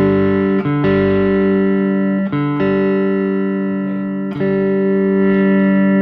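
Electric guitar played through an Officina Elettrica StompAmp Brown pedal amp: four strummed chords in turn, each left ringing for one to two seconds.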